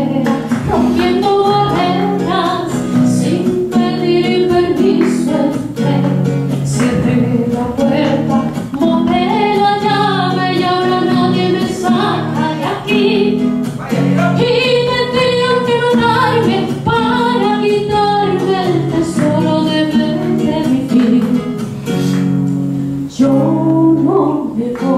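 A soprano singing with acoustic guitar accompaniment.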